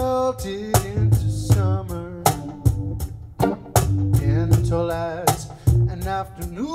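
Instrumental music: a violin strummed and plucked like a ukulele, over a steady percussive beat.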